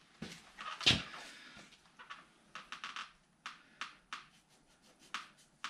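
Knife trimming strips of flesh from a raw coyote hide: a run of short, sharp, irregular clicks and snicks, with a louder one about a second in.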